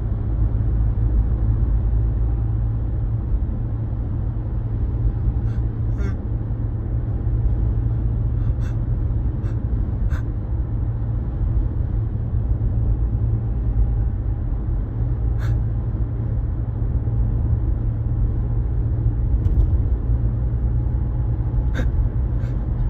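Steady low rumble of a running car heard from inside the cabin, with a few brief sharp sounds scattered through.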